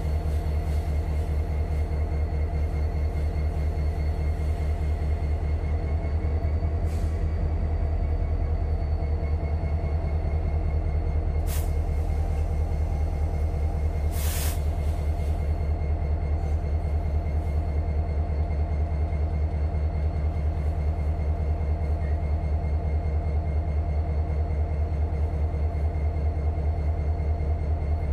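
Diesel engine of Union Pacific locomotive 4141, an EMD SD70ACe, running with a steady, evenly pulsing low rumble and a faint high whine. Two brief hisses come near the middle.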